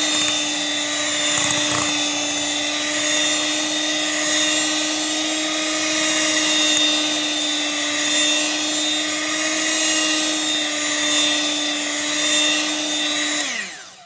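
Electric hand mixer running at one steady pitch, its beaters whipping sponge cake batter to beat out lumps of flour left after folding. Near the end it is switched off and winds down with a falling pitch.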